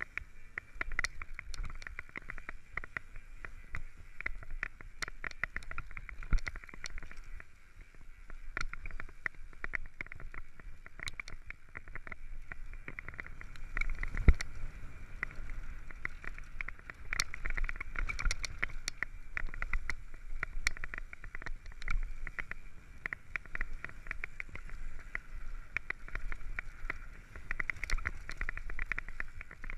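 Mountain bike running fast down a rough dirt-and-gravel trail, heard through a camera fixed to the handlebars: a constant clatter of rattles and knocks as the bike and tyres go over stones and ruts, over a steady hiss. One hard knock stands out about fourteen seconds in.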